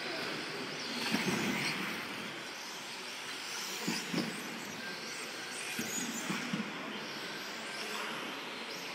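2WD radio-controlled off-road buggies racing around an indoor track, a steady mix of motor whine and running noise with faint rising and falling high tones as they speed up and slow down. A few short louder bumps come about a second, four seconds and six seconds in.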